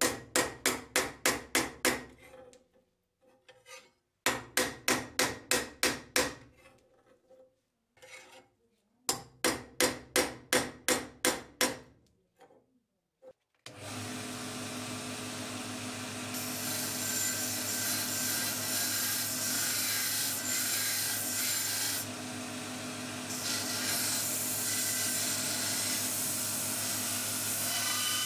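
A hammer strikes a steel knife blade laid on a vise, in three quick runs of ringing blows at about four a second. About fourteen seconds in, a belt grinder starts running and the blade is ground against the abrasive belt, with a short break partway through.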